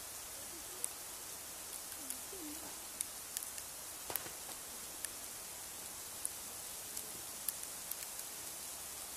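Steady outdoor hiss with scattered sharp ticks, irregular, about once or twice a second.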